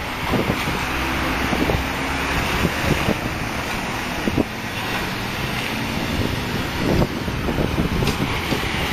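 Engine and road noise of a moving car, with wind on the microphone and a few short knocks.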